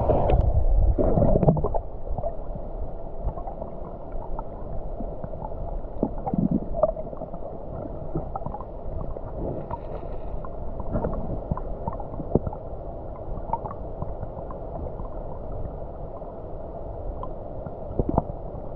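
Muffled underwater sound picked up by a camera submerged in a river: a splash as it goes under, then a low gurgling hiss with scattered small clicks and pops.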